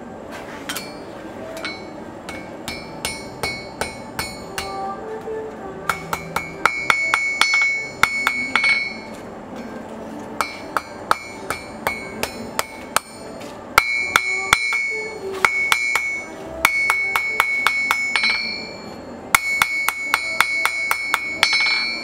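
Hand hammer forging a red-hot San Mai steel blade blank on an anvil: runs of quick blows, about three or four a second, with short pauses between runs. Each blow makes the anvil ring with a clear metallic tone. The blows are light at first and get heavier after about six seconds.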